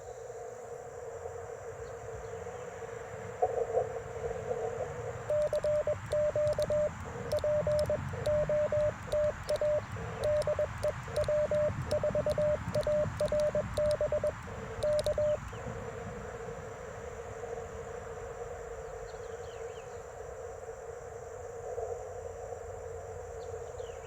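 Morse code being sent on an Icom IC-705: its sidetone, one steady pitch, keys on and off in dots and dashes for about ten seconds starting about five seconds in, with the light clicks of the Modern Morse paddles under it. Before and after, the receiver's band hiss comes through a narrow CW filter.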